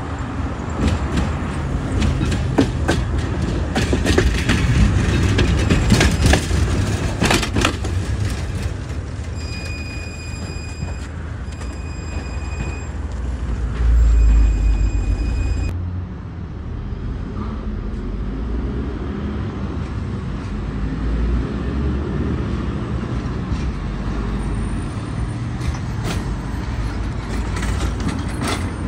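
A 71-623-02 (KTM-23) low-floor tram running on its rails, a rumble with sharp clicks and knocks from the wheels over the track. About ten seconds in come three evenly spaced high beeps, the tram's door warning as it stands at a stop, with a loud low rumble under the last one. Then comes the steady lower running sound of another tram of the same type.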